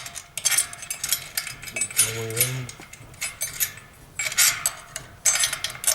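Small metal parts clicking and clinking in quick irregular strikes as steel nuts are handled and run onto the long bolts of a satellite dish pole-mount kit. A brief voiced murmur comes about two seconds in.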